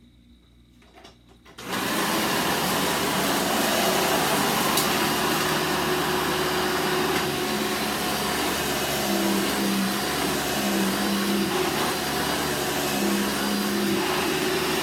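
Vacuum cleaner switched on abruptly about two seconds in, its motor then running steadily and loudly.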